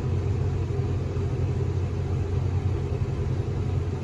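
Tractor engine running steadily, heard as a low drone from inside the cab.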